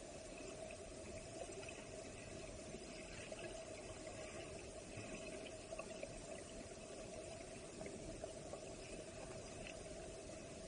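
Steady, muffled rush of a waterfall plunging into a creek pool, heard underwater as churning water and bubbles, with a few small scattered clicks.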